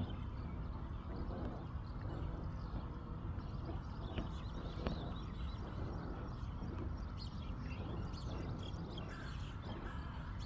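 Small birds chirping in short scattered calls, more of them in the second half, over a steady low rumble.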